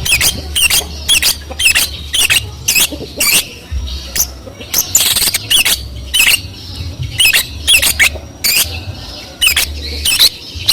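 Long-tailed shrike (cendet) in full song, giving a rapid string of short, sharp notes about two or three a second, some in quick pairs, in a mimicry-laden song. A low hum comes and goes underneath.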